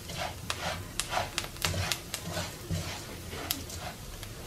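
Plastic spoon stirring and scraping dry rice as it toasts in oil in a nonstick frying pan: irregular scrapes and grain rustles, about two a second. The rice is browning to golden before the beans go in.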